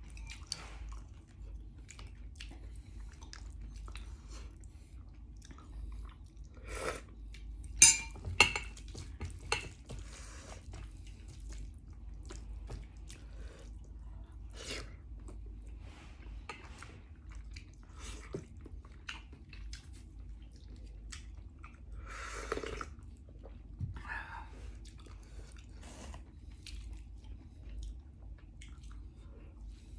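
Someone eating: chewing and biting with scattered small clicks, and a few sharp clinks about eight seconds in.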